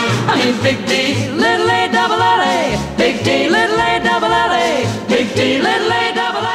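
Background music: a swing-style song with a steady pulsing bass beat and three long held notes.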